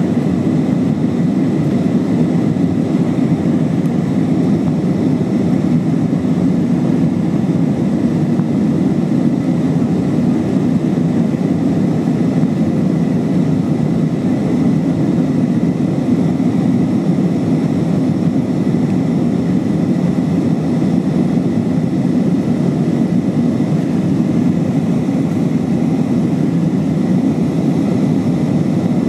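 Airbus A320-232 cabin noise during the climb after takeoff: a steady, deep rush of its twin IAE V2500 turbofan engines and airflow, with a faint steady whine above it.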